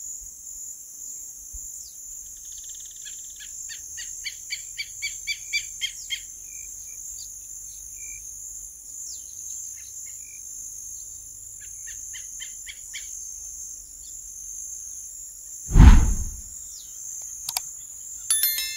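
Common gallinule calling: two runs of quick clucking notes, the first growing louder, over a steady high insect buzz. Near the end a brief loud low thump.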